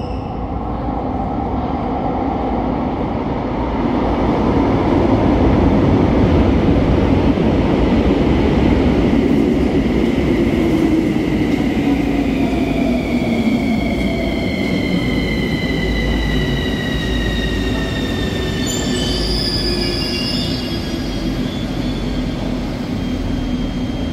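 Metro train pulling into the station and braking to a stop: a loud rumble of wheels on rail, then the traction motors' whine falling steadily in pitch over about ten seconds. A short high-pitched hiss comes near the end as it halts.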